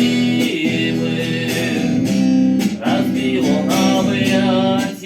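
Acoustic guitar strummed steadily, with a voice singing a Russian song over it.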